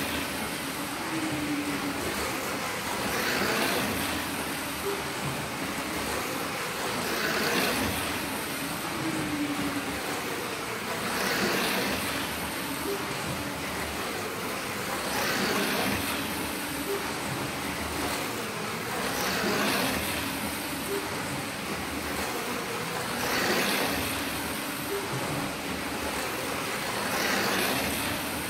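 Slot cars lapping a multi-lane Carrera track: a steady whirr of small electric motors and tyres in the guide slots, swelling about every four seconds as the cars come round past the microphone.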